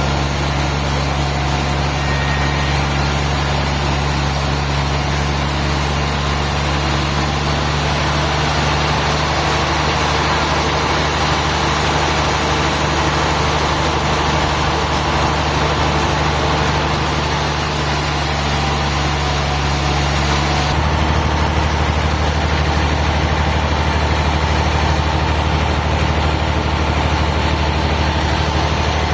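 Large engine running steadily, its tone shifting down about twenty seconds in.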